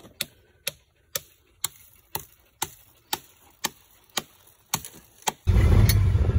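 A claw hammer driving fence staples into a tree trunk to hold the fence wire: about a dozen sharp blows, two a second. Near the end it cuts to the loud, steady rumble of a farm utility vehicle being driven.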